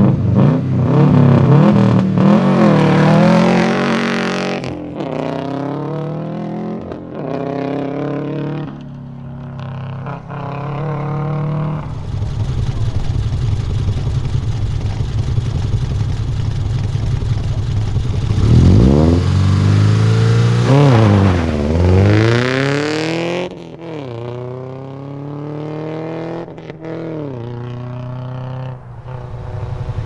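Subaru Impreza rally cars' flat-four engines at a stage start. One car launches and pulls away, its revs climbing and dropping through several gear changes as it fades. The next car then holds a steady note at the line, blips the throttle hard up and down, and launches away through the gears.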